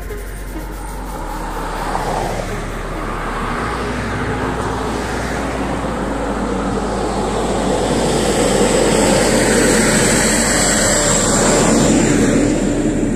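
Road traffic on a multi-lane city street: cars passing, their tyre noise swelling to its loudest about two-thirds of the way through.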